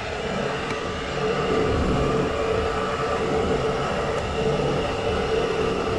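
Slant-PRO CNC lathe running a boring bar inside a deep bore in a series of short passes, flood coolant spraying against the enclosure window. A steady machine sound with a constant hum throughout.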